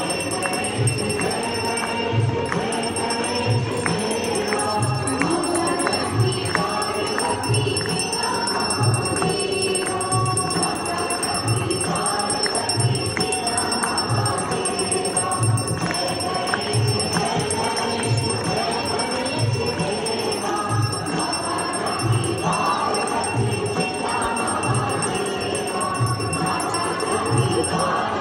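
Hindu devotional aarti music: many voices singing over a steady low drum beat a little faster than once a second, with bells jingling.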